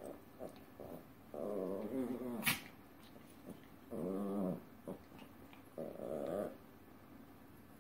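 Chihuahuas growling while play-fighting: three drawn-out growls, starting about a second and a half in, about four seconds in and about six seconds in. A sharp click sounds about two and a half seconds in.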